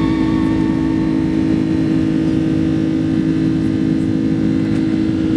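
Steady jet engine drone of a Boeing 767-200 airliner heard inside the passenger cabin, a constant low hum over a rushing noise.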